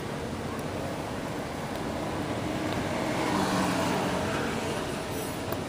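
Steady rumble and hiss of road traffic going by, swelling a little past halfway as a vehicle passes.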